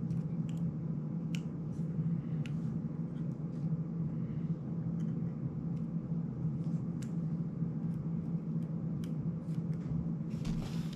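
Small plastic clicks and taps of an FPV cinewhoop drone being handled and fitted by hand, over a steady low hum, with a brief rustle near the end.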